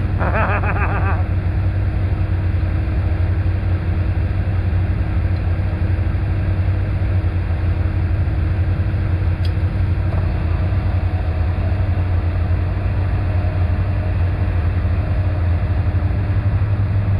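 ATV engine running steadily, a constant low drone with mechanical noise, heard close on the machine.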